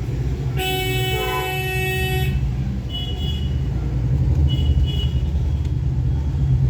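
A horn-like honking tone held for under two seconds, then two short high beeps, over a steady low rumble.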